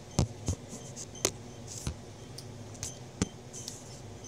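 About five sharp knocks and taps of things handled on a wooden tabletop, spread unevenly, the loudest near the start and about a second in.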